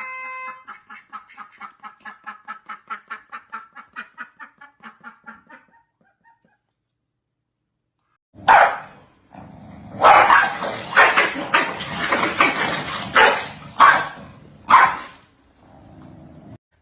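A dog barking, a loud run of harsh barks in the second half. Before that, a fast run of short pitched sounds, about five a second, fades out.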